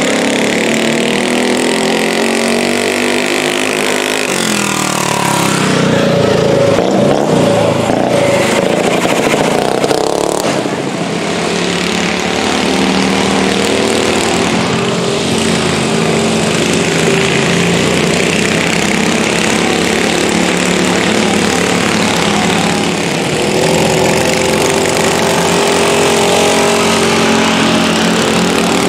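Racing riding lawn mower engines running hard and revving, their pitch rising and falling as the mowers run the track. There is a short break in the sound about ten seconds in.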